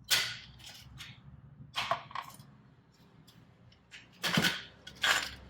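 A handful of short clinks and scrapes of tools on metal as the old turbo-flange gasket is worked loose and pulled out, with quiet gaps between them.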